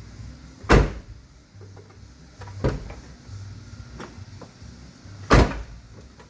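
The rear half-door of a 2000 Ford F250 Super Duty extended cab being worked open and shut, its newly replaced latch clunking: two loud slams about a second in and near the end, with a lighter clunk between.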